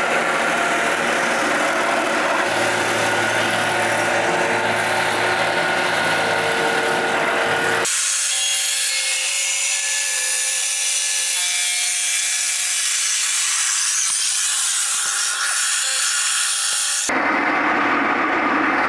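Engine-driven swing-blade circular sawmill running, its blade sawing through a log: a loud, steady mix of engine drone and blade noise. About eight seconds in, the low engine sound drops out abruptly, leaving a thinner, hissing saw sound, and it returns about a second before the end.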